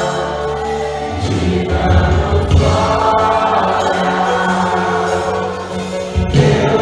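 Choral music: a choir singing sustained chords over a deep bass accompaniment, with a short dip and a new chord near the end.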